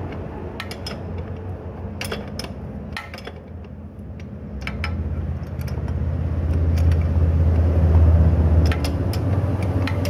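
Steel spanners clinking and scraping against a motorcycle's rear axle nut and chain adjuster as the nut is worked, in scattered sharp clicks. Under them a low hum swells from about halfway and eases near the end.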